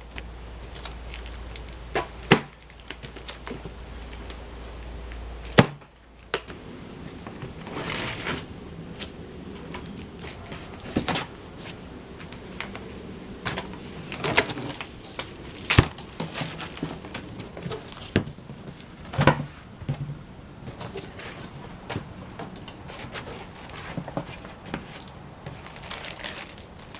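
A new generator's cardboard shipping carton and packing being opened and handled: scattered knocks, scrapes and rustling, with a few sharp thumps in the first six seconds.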